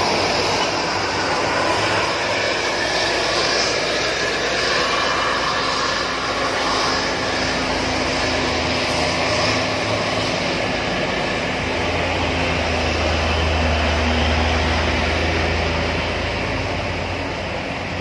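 Diesel engines of a Mercedes-Benz OH 1626 coach and heavy trucks running through a tight hairpin bend, a steady dense engine noise. A deeper engine drone swells about twelve seconds in as a truck passes close.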